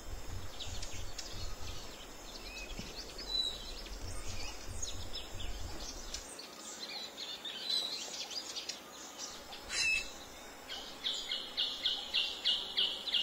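Birds calling and chirping over a low rumble that fades out about halfway. Near the end comes a fast run of repeated chirps, about three or four a second.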